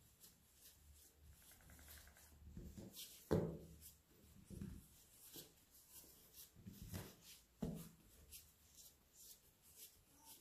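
Faint soft thuds and rubbing as hands fold and press soft brioche dough on a floured stainless-steel worktop, a few separate pats with the loudest a little over three seconds in.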